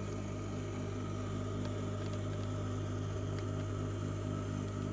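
Sewing machine motor running steadily at idle, a constant low hum, with a few faint clicks.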